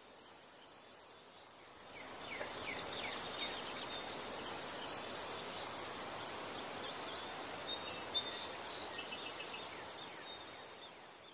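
Outdoor ambience: small birds chirping over a steady rushing noise that swells about two seconds in, then fades out at the end.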